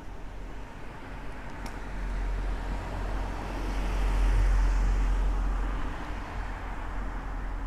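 A car drives past on the street, its engine and tyre noise swelling to a peak about halfway through and then fading away.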